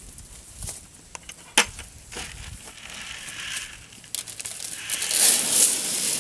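Goat feed poured from a plastic bucket into a metal trough: a loud rushing rattle that starts about four seconds in and grows louder. Before it come a few scattered knocks, one sharp knock about a second and a half in.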